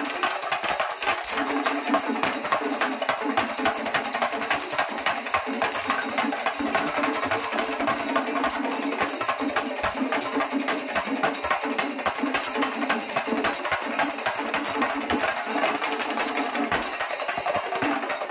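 Chingari (shinkari) melam percussion ensemble playing: chenda drums beaten in a fast, dense, unbroken rhythm, with a steady pitched ring underneath.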